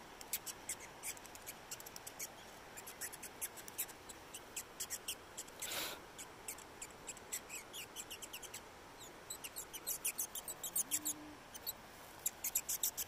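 New Zealand fantail calling: a long run of rapid, thin, high-pitched chips and cheeps, coming in quick irregular bursts.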